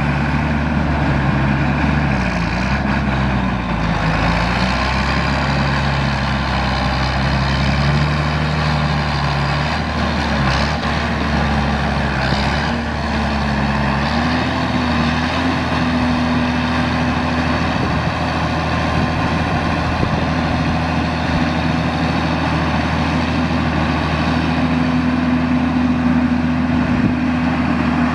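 John Deere 8400 tractor's six-cylinder diesel engine running. Its speed wavers during the first half, then rises about fourteen seconds in and holds at a higher, steady pitch.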